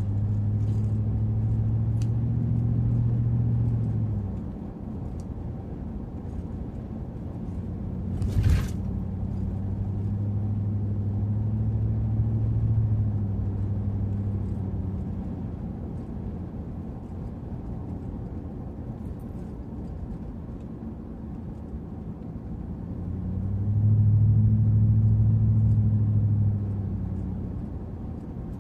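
V8 engine and road noise of a 2004 Chevy Avalanche Z71 heard from inside the cab while driving: a steady low drone that swells louder three times, near the start, about ten seconds in and again near the end. A single sharp knock sounds about eight seconds in.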